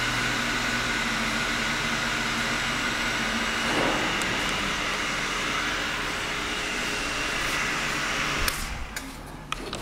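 Pro-Cut PFM-900 on-car brake lathe running, its motor and drive giving a steady hum with a few steady whining tones while the feed screw turns slowly. About eight and a half seconds in the sound drops off sharply, followed by a few light clicks.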